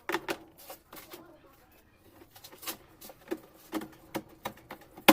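Irregular light knocks and clicks of parts and tools being handled during washing-machine mechanism assembly, some with a short ringing tone, ending in one sharp louder knock.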